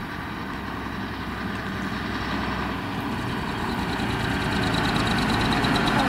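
1984 Mack R series truck's diesel engine running as the bobtail tractor unit drives slowly up, growing steadily louder as it approaches.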